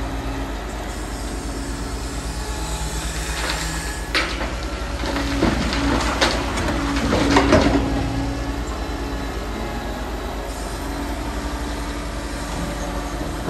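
Liebherr R940 Demolition excavator's engine running steadily, with a cluster of metallic clanks and scraping from about four to eight seconds in.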